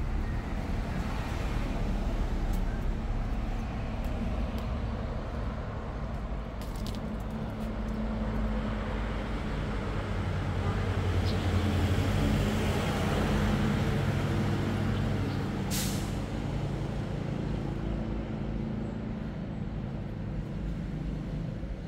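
Low engine hum of a motor vehicle, growing louder around the middle and easing off again, with a single sharp click about two-thirds of the way through.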